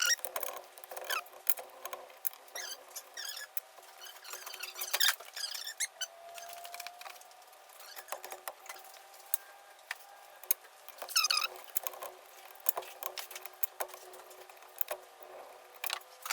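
Small hand tools and metal carburetor parts clicking and ticking as an Edelbrock four-barrel carburetor is taken apart and its accelerator pump removed. There are brief squeaks about five and eleven seconds in.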